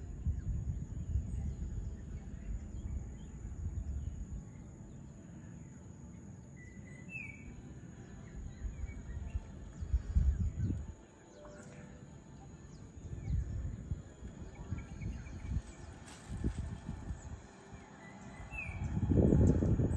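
A few scattered bird chirps over a steady high insect drone, with uneven bursts of low rumble, loudest about ten seconds in and again near the end.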